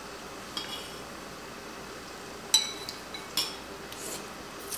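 Chopsticks and spoons clinking against ceramic bowls while eating: a few short, ringing clinks, the loudest about halfway through.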